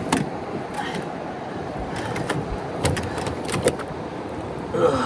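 Steady rushing noise of wind and water with several short knocks and clicks scattered through it.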